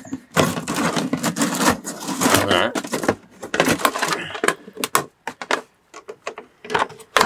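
A plastic screen wash container being cut open. A run of rasping cutting strokes through the plastic, then scattered clicks and crackles as the plastic gives.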